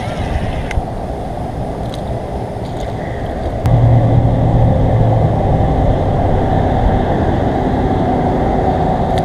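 An air conditioner's outdoor condensing unit with a steady rumbling background; about four seconds in a low, steady hum starts abruptly and the sound gets louder, consistent with the compressor kicking on.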